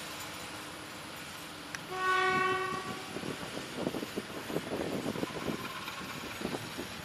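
SM42 diesel shunting locomotive sounding one single-tone horn blast of about a second, a couple of seconds in, over its running diesel engine. After the blast its wheels clatter irregularly over the track as it approaches.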